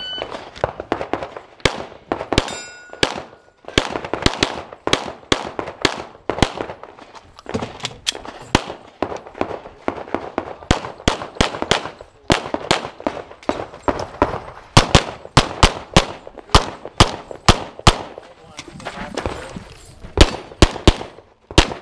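A shot timer's electronic start beep, then a semi-automatic pistol firing rapid strings of shots with short pauses between positions and for reloads, over about twenty seconds of a practical-shooting stage run. Steel targets ring with a clang when hit, most clearly about two and a half seconds in.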